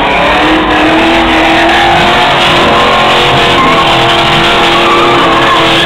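Chevrolet muscle car's engine held at high revs while it spins its rear tyres doing donuts, a loud, sustained mix of engine note and tyre squeal with the pitch wavering slightly.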